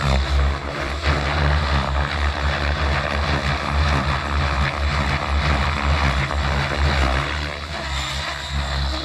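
XLPower 550 radio-controlled helicopter flying aerobatics, its main rotor blades whooshing loudly, the sound rising and falling with the manoeuvres.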